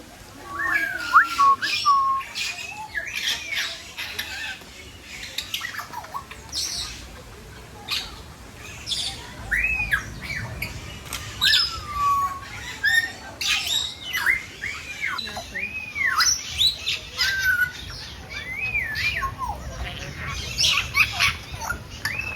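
Several parrots calling over one another: harsh squawks and screeches mixed with whistled calls that rise and fall in pitch.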